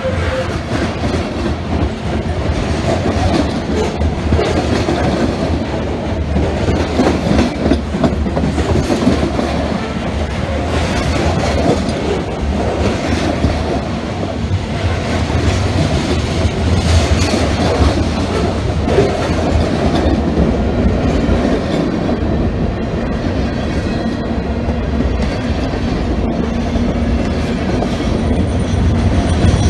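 Freight train of covered hopper cars and gondolas rolling past right beside the track: a steady, loud rumble of steel wheels on rail with repeated clacking as the wheels cross rail joints.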